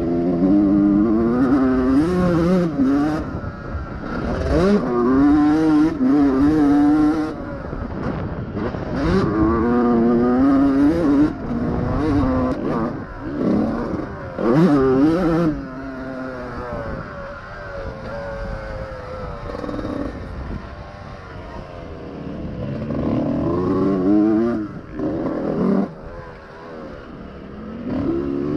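A 2001 Honda CR125R's two-stroke single-cylinder engine being ridden hard, its pitch climbing and dropping again and again with the throttle. It is quieter and lower for a few seconds past the middle, then revs up again near the end, with sharp knocks and rattles from the bike now and then.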